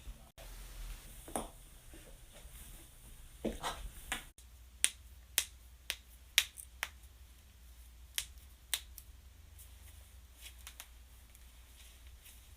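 Joints cracking: a run of sharp pops, about seven close together from about five seconds in, then a few fainter ones. Before them come two softer rustling sounds.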